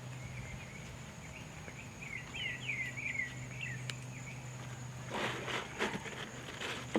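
Faint outdoor ambience with a low steady hum, a cluster of quick falling chirps from birds or insects around the middle, then rustling, handling noise in the last two seconds.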